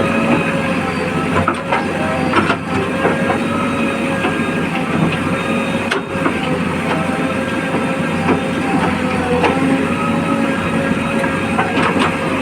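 Heavy diesel machinery running steadily, with a constant metallic rattle and scattered knocks over the engine note.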